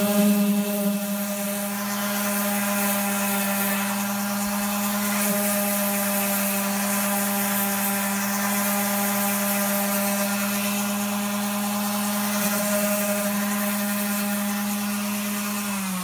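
DeWalt random orbital sander running steadily at full speed, its pad rubbing over hardened filler on a wing patch, a first rough sanding pass. At the very end its pitch drops as it is switched off and winds down.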